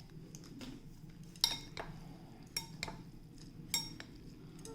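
Kitchenware clinking: half a dozen sharp, separate clinks of dishes and utensils handled during cooking, each with a brief bright ring.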